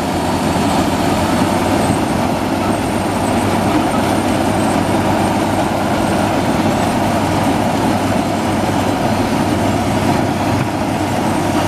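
Maxxi Bimo rice combine harvester running steadily under load as it tracks through a paddy, cutting lodged, flattened rice.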